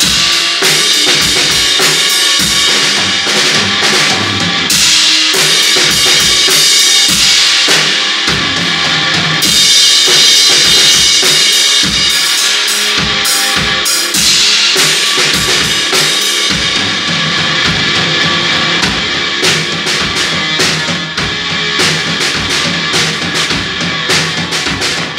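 Loud instrumental garage-punk rock jam: distorted electric guitar, bass and a drum kit pounding with heavy cymbal wash. The cymbal and guitar wash is densest in the first half and thins after about 17 seconds, leaving the drums more to the fore.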